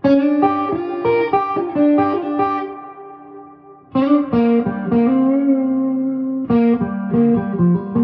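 Electric guitar played through a Princeton Reverb clone amp with its spring reverb set at about 4: three short picked phrases, starting at the beginning, about four seconds in and about six and a half seconds in, each ringing on in a fading reverb tail.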